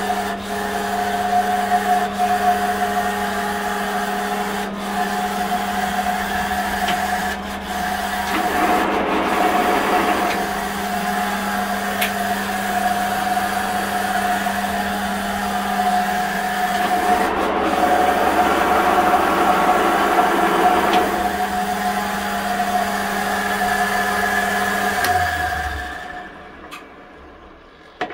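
Dean Smith & Grace 13-1 lathe running under power, its headstock gearing, feed gearbox and leadscrew turning with a steady mechanical hum and two stretches of louder rattling. Near the end the drive is switched off and the machine runs down to a stop.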